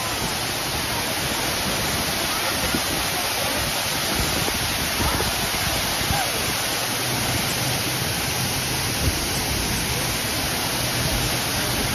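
Water from a 45-foot man-made waterfall pouring down the rock face into its plunge pool: a steady, even rush of falling and splashing water.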